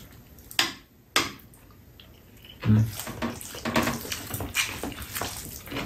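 Close-up eating sounds of bibim-myeon, cold mixed noodles: two short wet slurps about half a second and a second in, then a run of irregular chewing and mouth noises.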